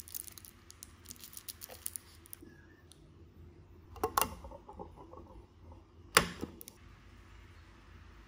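Small clicks and crinkles of a drink package being handled, then two sharp knocks about two seconds apart, the second the loudest.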